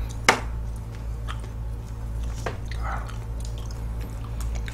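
Soft, wet squishing of ripe figs being handled and their skins peeled, with one sharp click near the start and a few small clicks after it.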